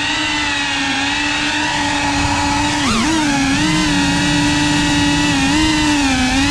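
FPV quadcopter drone's brushless motors and propellers whining steadily in flight, the pitch dipping briefly and swinging back up about three seconds in as the throttle changes.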